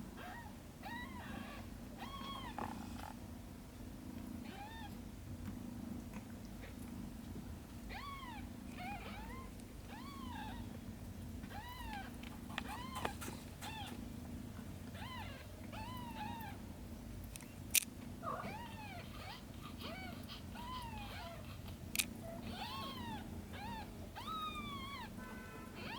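Kittens mewing over and over in short, high, rising-and-falling mews, over a low steady drone. Two sharp clicks come about two-thirds of the way through.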